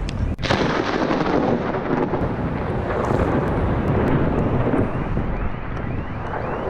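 Thunderstorm: wind buffeting the microphone, with low rumbling thunder. A brief dropout about half a second in, then a louder, hissier stretch.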